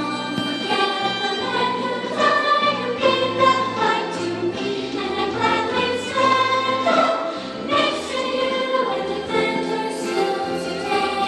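Music: a group of voices singing a song over instrumental backing with held bass notes.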